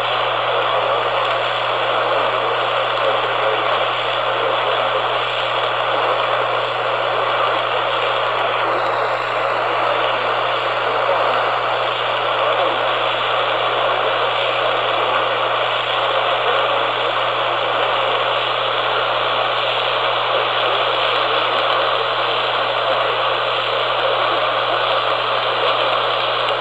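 Steady, loud hiss of AM radio static with a constant low hum underneath, unbroken throughout.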